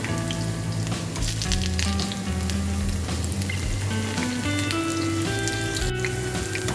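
Potato slices deep-frying in hot oil in a pan: a steady sizzle with small crackles, under background music.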